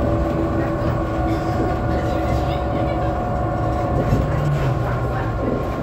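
Cabin of a BredaMenariniBus Avancity city bus under way: a steady engine and drivetrain drone with several high whining tones over it, and a brief change in engine pitch about four seconds in.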